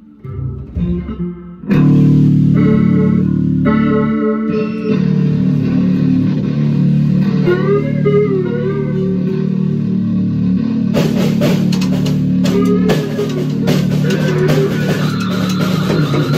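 Improvised noise jam: acoustic guitar and electric bass play loud sustained low notes with sliding bends, and the drum kit joins with cymbals and drums about eleven seconds in.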